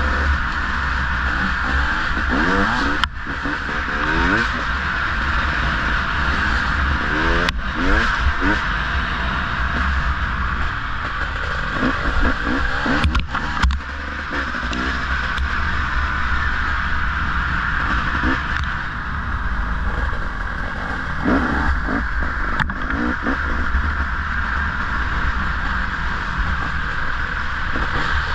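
Off-road motorcycle engine revving up and down over and over as it is ridden along a rough trail, under a steady rush of wind. A few brief jolts break into the sound.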